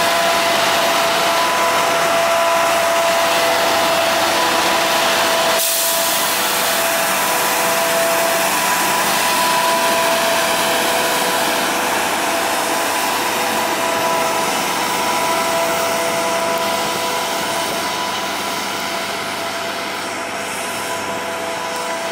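Road-rail tram-track cleaning truck with its suction blower running: a loud, steady rushing noise with a high, steady whine on top, slowly growing quieter near the end as the truck moves away along the rails.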